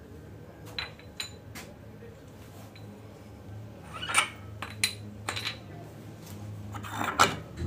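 Light metallic clinks and taps of Honda PCX125 front variator parts being handled and fitted: the aluminium ramp plate and its slider pieces knocking together, irregularly, with the sharpest clinks about four seconds in and near the end. A low steady hum runs underneath.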